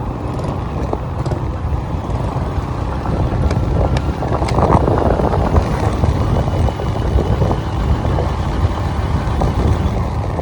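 Steady low rumble of a moving road vehicle, with road and wind noise and a brief swell about halfway through.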